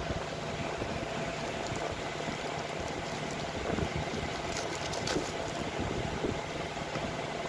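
Steady background hiss with a faint constant hum, and a few brief crinkles of plastic packaging being handled about four and a half to five seconds in.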